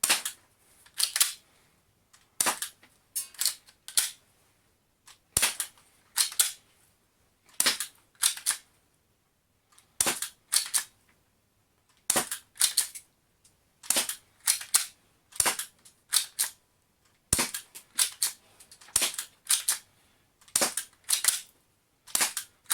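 Heavyweight Y&P USP spring-powered airsoft pistol being cocked by racking its slide and fired, shot after shot. Sharp clacks come in pairs and clusters about a second apart.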